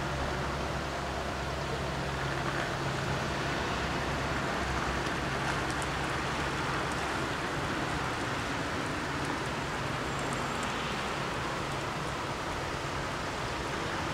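Steady street traffic noise with a low engine hum from vehicles idling at the lowered crossing barriers.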